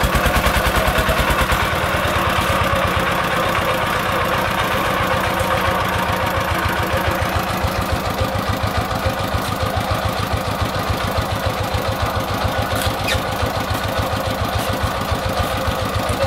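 Single-cylinder diesel engine of a loaded công nông farm truck running with a steady, rapid chugging beat; about two seconds in it eases off from a harder run to a settled idle.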